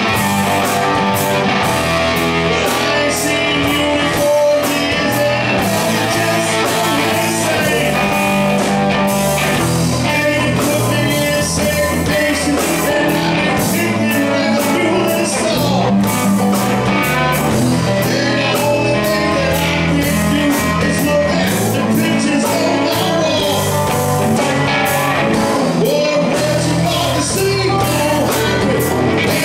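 Live rock band playing loud and steady: a man sings lead into a microphone over electric guitars, an acoustic-electric guitar and drums with cymbal hits.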